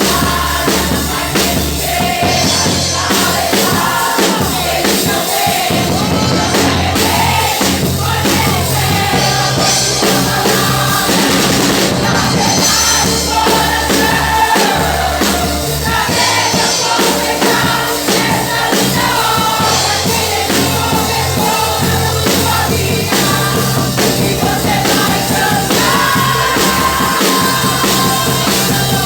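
Loud music with singing over a strong, steady bass line.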